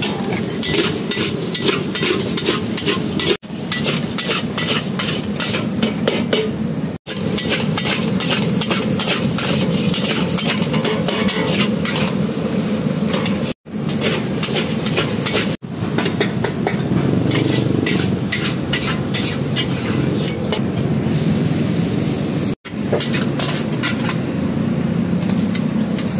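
A metal ladle and spatula scraping and clanking against a steel wok as rice noodles are stir-fried over a gas flame, the noodles sizzling. The clatter runs in quick, uneven strokes and breaks off for an instant a few times.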